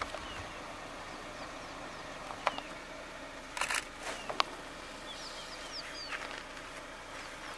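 Outdoor bush ambience: a steady background hiss with a few sharp clicks around the middle, then several short, high, falling bird chirps.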